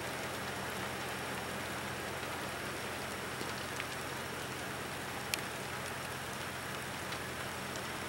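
Steady hiss of light rain, with a few scattered ticks of drops. A low, steady hum runs underneath.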